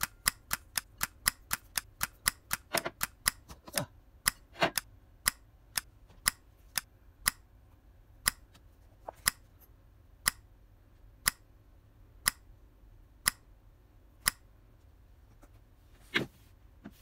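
A series of sharp ticks, about four a second at first, slowing to about one a second, with a brief noisy sound near the end.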